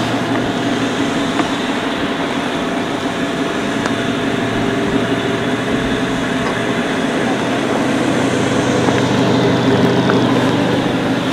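Mazda 6's 2.0-litre SkyActiv-G inline-four idling, a steady even hum.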